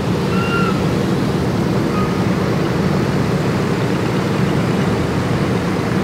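The four Pratt & Whitney R-1830 Twin Wasp radial engines of a B-24 Liberator bomber run as it taxis close by: a loud, steady rumble with a fast, even pulsing.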